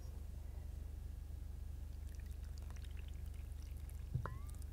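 Milk, oil and egg mixture poured from a small stainless steel bowl into a well in dry cornbread ingredients in a larger steel bowl: a faint, soft pour with a few light ticks, and a brief squeak about four seconds in, over a low steady hum.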